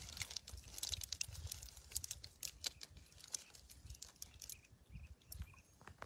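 A hand scooping small fish out of a metal basin of water: light splashing and dripping with many small irregular clicks and crackles.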